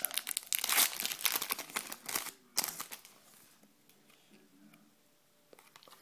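Trading-card pack wrapper being torn open and crinkled by hand, a dense crackling that stops about two and a half seconds in.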